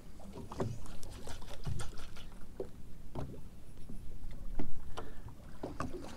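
Small waves lapping and slapping against the hull of a small fishing boat: irregular light knocks and splashes, a few a second, over a low rumble.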